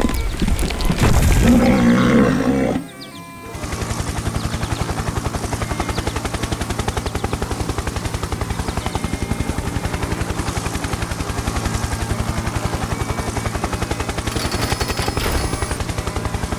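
A loud pitched sound for the first few seconds, then a steady, rapid mechanical pulsing that runs on evenly.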